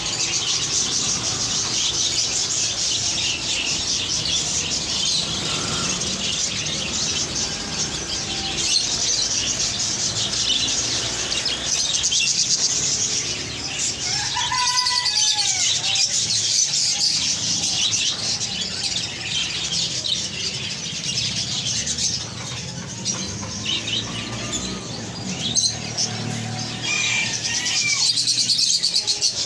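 Parrots chirping and chattering together without a break, with a few clearer gliding calls about halfway through.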